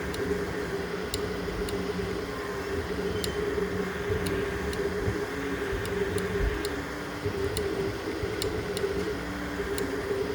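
3D printer running mid-print: a steady motor hum with held tones, some of which shift in pitch every so often, and scattered light ticks.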